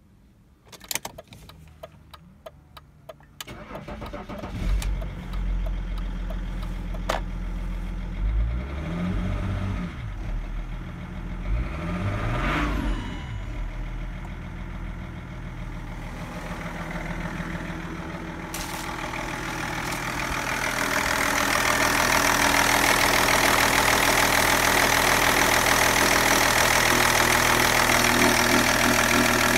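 BMW M57D30 3.0-litre straight-six turbodiesel started after a few clicks, then idling, revved briefly twice. From about 20 seconds in it is heard louder and closer through the open engine bay, running steadily.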